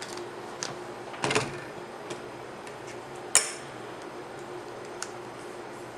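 A few small clicks and taps from handling a plastic transistor radio case with a screwdriver, with a short cluster just over a second in and one sharp, louder click a little past the middle.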